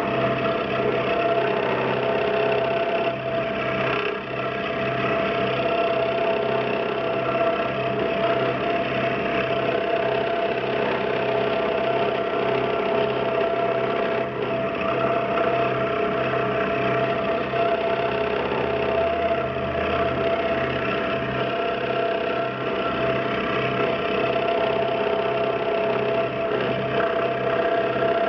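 DeWalt DW788 scroll saw running fast with its blade cutting through 12 mm wood: a steady machine hum with a constant tone over a fast, even chatter.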